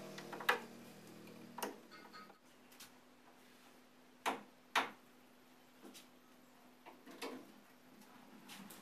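Hand work on a wooden chicken-cage frame: a handful of sharp, irregularly spaced clicks and knocks from a screwdriver and wooden parts being handled, two of the loudest close together about halfway through.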